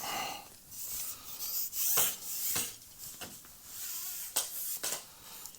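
Handling noise from a carbon pole top kit and its line being worked by hand: scratchy rubbing with several sharp clicks and taps.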